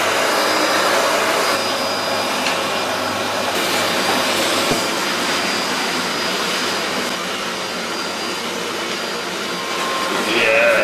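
Vacuum cleaner running with a steady hiss. Near the end a person's voice cries out briefly over it.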